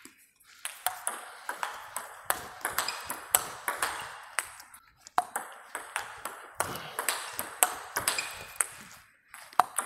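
Table tennis rally: a plastic ball is struck back and forth by rubber-faced bats and bounces on the table, making a steady run of sharp pock clicks, two to three a second. The strokes are topspins, one bat faced with Young Shine Blue rubber. The rally breaks off briefly about five seconds in and again near the end before restarting.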